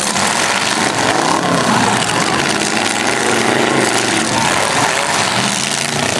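Several demolition derby cars' engines running loud and revving unevenly, several at once, a continuous din with pitches rising and falling.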